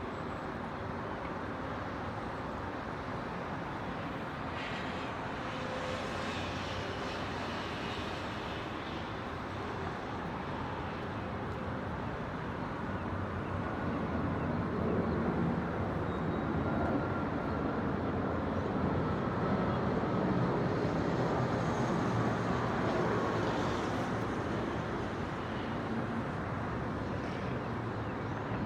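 Distant city traffic noise, a steady hum of the city. Midway a louder passing vehicle swells up, peaks and fades away again.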